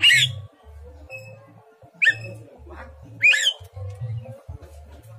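Caged myna (jalak) giving loud, harsh calls and whistles, about one a second. The keeper takes these for the calls of a bird in breeding condition, ready to be paired.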